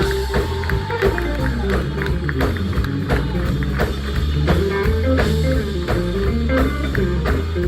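A live band playing an instrumental: a steady bass line under regular drum-kit hits and a melodic line on top.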